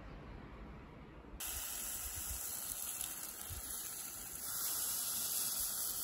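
Steady hiss of batter cooking in a hot cast-iron pulppang mold as it is poured into the cells. It starts about a second and a half in.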